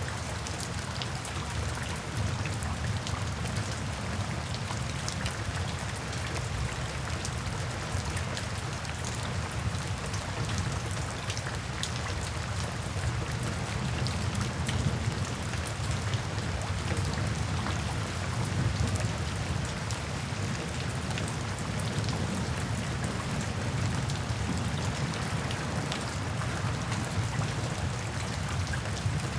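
Steady rainfall: an even hiss of rain with many small drop ticks on a surface, over a low rumble.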